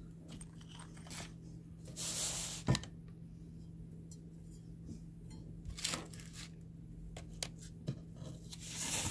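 Hands handling cables and packaging: scattered rustling and small clicks, with a longer rustle about two seconds in followed by a sharp click, and a steady low hum underneath.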